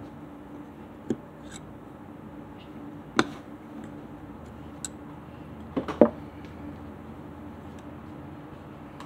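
Small sharp clicks and taps of a motorcycle brake master cylinder's piston and rubber dust cover being handled and pressed into place: a few single taps, then a quick run of three about six seconds in, the loudest. A steady low hum runs underneath.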